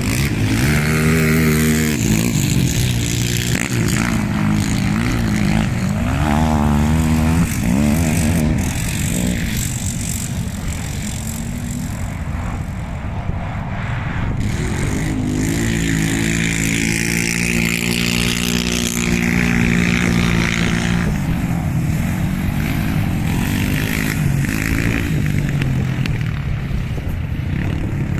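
Quad bike (ATV) engines revving hard during racing, their pitch rising and falling with the throttle and holding steady high revs for several seconds about two-thirds of the way through.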